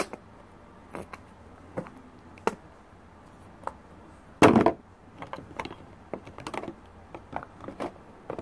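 Plastic containers of a toy slime-making kit being handled on a table: scattered light clicks and taps, with one louder knock about four and a half seconds in.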